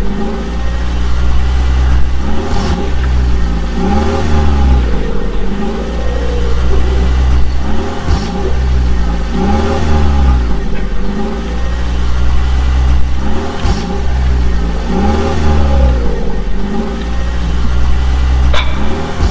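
A vehicle engine revving up and down in a regular loop, repeating about every three seconds over a deep steady rumble, with a few faint clicks.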